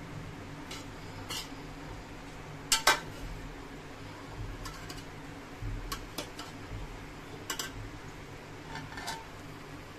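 A metal serving spoon clinks and scrapes against the sides of a large metal pot while scooping through cooked biryani rice. The light clinks come at irregular moments, and the loudest is a pair about three seconds in.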